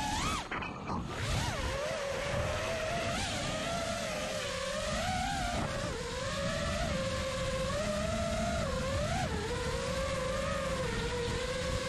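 Brushless motors and props of a 5-inch FPV freestyle quadcopter (Hyperlite 2207.5 2550kv motors, Gemfan 5-inch props) whining, the pitch sliding up and down with the throttle. About half a second in the whine almost drops out and then picks back up. A rough rush of wind on the onboard camera's microphone runs underneath.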